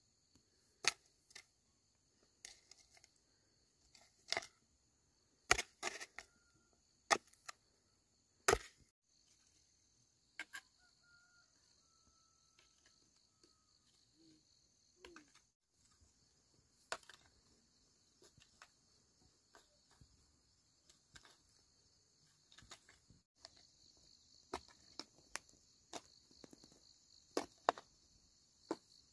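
A steady high-pitched hiss or chirring, with scattered sharp knocks and clicks, the loudest of them in the first nine seconds.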